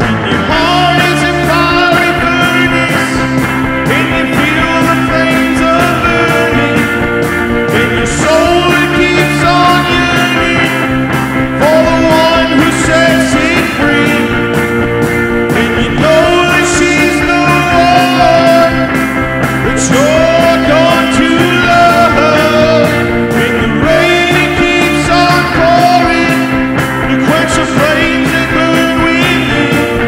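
Rock song: a man singing over an amplified electric guitar strummed in a steady rhythm, his vocal phrases rising and falling.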